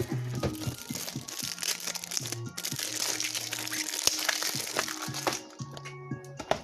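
Trading-card pack wrapper crinkling as it is handled and opened, over steady background music. The crinkling stops about five seconds in.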